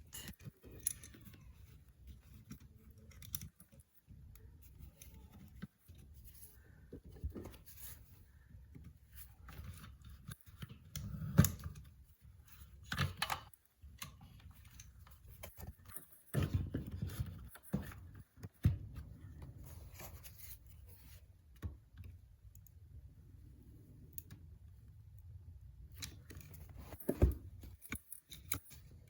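Scattered small clicks, scrapes and knocks of hand tools and copper wire being worked at an electrical outlet, as the wire ends are bent into loops and the terminal screws are tightened, with a handful of louder knocks.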